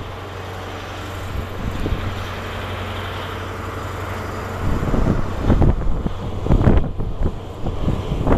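Diesel engine of a Class 43 HST power car running steadily with a constant low hum as the train passes. From about halfway through, gusts of wind buffet the microphone with irregular heavy thumps.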